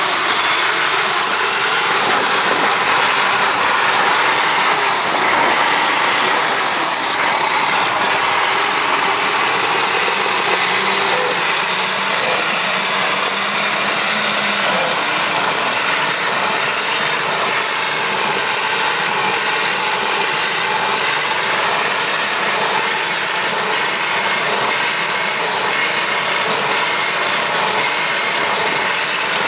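Turbocharged straight-six of a Chevrolet Caravan running steadily at high revs with the rear tyres spinning in a long burnout.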